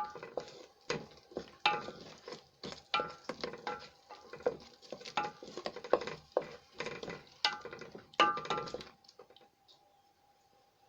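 A spoon stirring and scraping in a cooking pot of meat and tomato mixture, with irregular knocks and scrapes against the pot, several a second. The stirring stops about nine seconds in.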